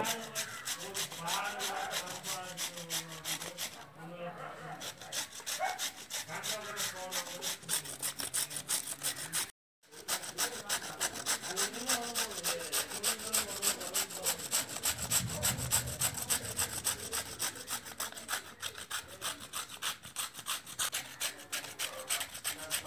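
Beetroot being grated on a stainless steel box grater: quick, rhythmic rasping strokes. The sound drops out briefly about ten seconds in, then the grating carries on.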